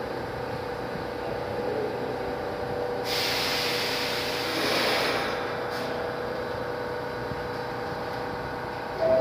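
A New York City subway train stands at the platform with a steady hum. About three seconds in, it gives a loud hiss of released air, from the brakes, lasting about two seconds before dying away. A chime tone begins right at the end.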